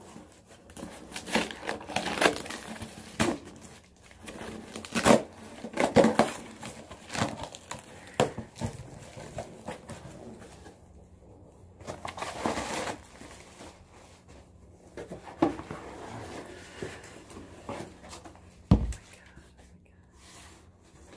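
Cardboard box being opened and its paper packing handled, with irregular crinkling, rustling and tearing and scattered clicks. A sharp knock near the end.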